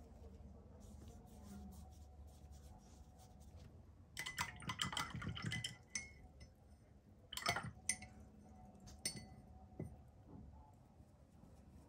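Watercolour brush rattling and tapping against a glass water cup: a run of quick light clinks for about two seconds, then a sharper clink and a few single taps.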